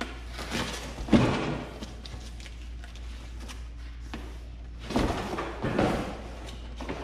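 Cardboard shipping box being handled and shifted: a sharp thump about a second in, then rustling and scraping again around five seconds in, over a steady low hum.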